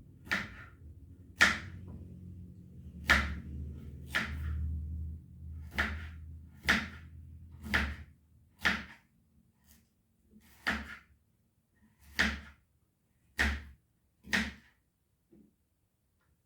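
Kitchen knife slicing fresh turmeric root into small pieces, a sharp knock on the chopping board with each cut, about a dozen cuts at an uneven pace of roughly one a second.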